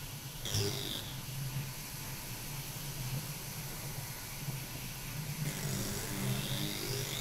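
Film sound-design ambience: a low steady hum under a hiss, with a short whoosh about half a second in and another whoosh swelling over the last couple of seconds.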